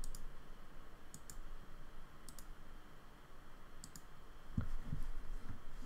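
Computer mouse clicking a handful of times, several clicks in quick pairs, as menu entries are picked. Near the end come a few soft, dull knocks.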